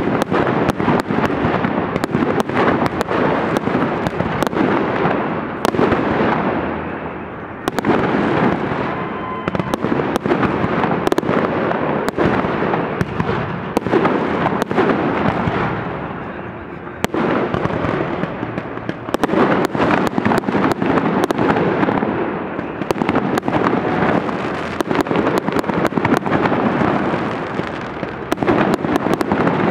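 Fireworks display: a rapid, continuous barrage of bangs and crackling from aerial shells, easing off briefly three or four times before the next volley starts with a sharp bang.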